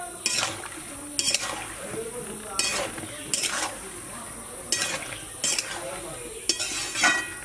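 Metal spoon stirring chopped elephant foot yam stalks in an aluminium pot, scraping against the pot in short strokes about once a second, mixing in the salt before parboiling.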